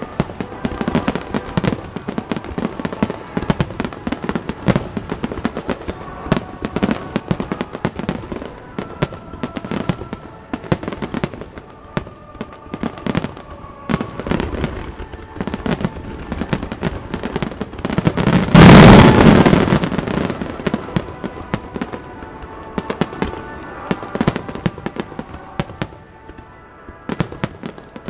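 Fireworks finale: aerial shells bang and crackle in quick, dense succession. About two-thirds of the way through comes one much louder blast lasting about a second and a half. Music plays faintly underneath.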